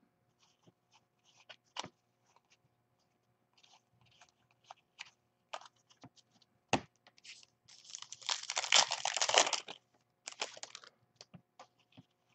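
Trading cards being handled with light taps and slides, then about eight seconds in a couple of seconds of loud crinkling and tearing as a foil Panini Diamond Kings card pack is opened, with a shorter burst of crinkling after it.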